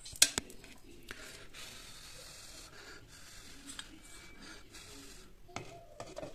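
Steel bowl of charcoal clinking sharply twice against a non-stick pan, then light handling and rubbing, and near the end a glass pan lid knocking onto the pan with a few clicks.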